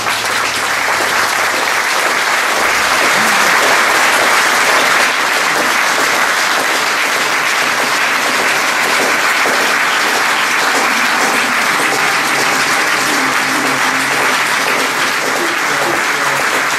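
Audience applauding, dense steady clapping in a hall that builds a little over the first few seconds.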